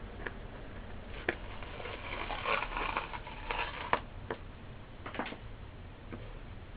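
A small metal tool scraping and clicking against an ESS AMT woofer's cone and metal frame while the old surround is being worked off: a few sharp clicks and a stretch of scratchy scraping near the middle.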